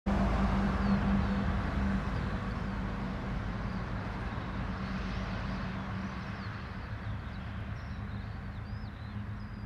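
Steady low rushing of wind with a constant low drone under it, slowly fading, while small birds chirp, more often near the end.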